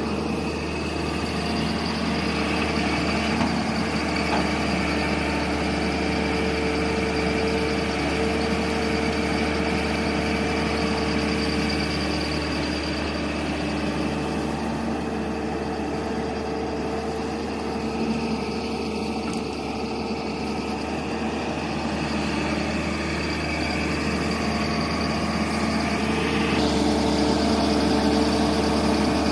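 Hydraulic excavator's diesel engine running steadily, growing a little louder near the end.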